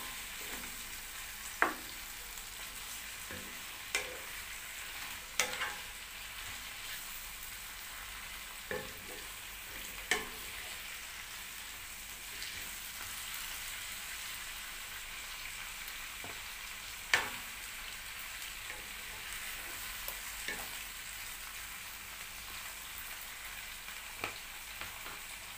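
Cabbage, zucchini and red bell peppers frying with a steady sizzle in a stainless steel pan, stirred with a wooden spatula that knocks against the pan every few seconds; the loudest knock comes about two-thirds of the way through.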